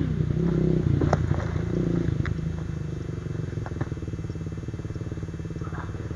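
Kawasaki KLX trail bike's single-cylinder four-stroke engine fading away as the bike rides off down a dirt track, its note growing steadily fainter.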